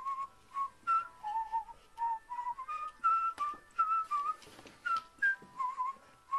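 Background music: a whistled melody of short, separate notes moving up and down, with a few sharp taps.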